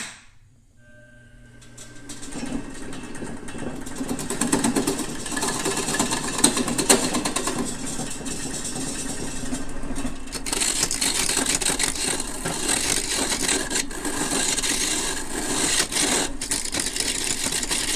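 A wood lathe switches on with a click and runs with a steady hum. About two seconds in, a turning tool starts cutting the spinning driftwood burl, a continuous scraping hiss with rapid ticking as the tool catches on the soft, uneven, partly rotten wood.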